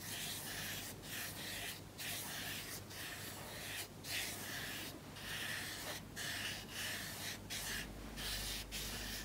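Flat watercolour brush rubbing over damp watercolour paper to soften the edges of wet paint: a string of soft, scratchy strokes, each broken off by a brief pause.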